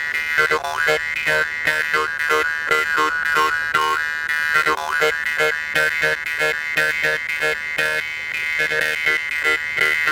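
Jew's harp (mouth harp) played in a fast, even plucking rhythm: a buzzing twang over a steady drone, its tone colour sweeping up and down as the mouth shapes it.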